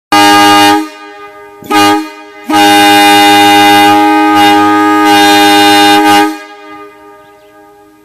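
WABCO AA-2 air horn blowing one steady, very loud note: a short blast, a brief toot, then a long blast of nearly four seconds that cuts off and echoes as it dies away.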